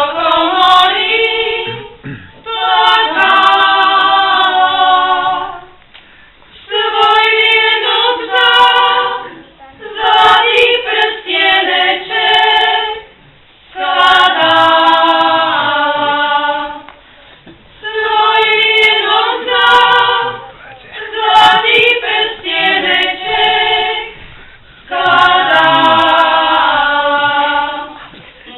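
Women of a Slovak folk ensemble singing a wedding song together, unaccompanied, in short phrases of two to three seconds with a brief breath between each, about eight phrases in all.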